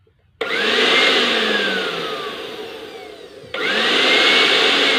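Panasonic blender motor switched on twice in short bursts. Each time it spins up with a quickly rising whine, then slowly winds down with falling pitch. The repaired blender is running.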